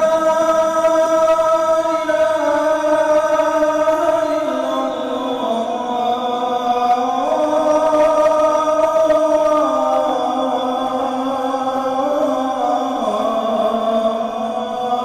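A man's voice chanting an Arabic religious phrase into a microphone, drawn out in long melismatic held notes that step up and down in pitch without a pause.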